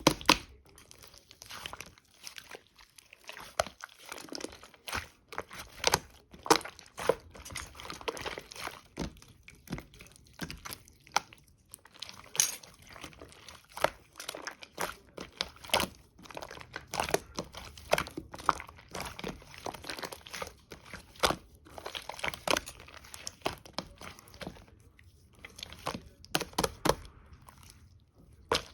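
Slime being kneaded, squished and mixed by hand, making irregular wet crackling and popping clicks.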